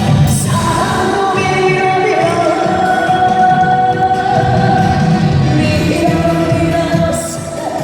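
A trot song performed live over a backing track, with long held sung notes over the accompaniment.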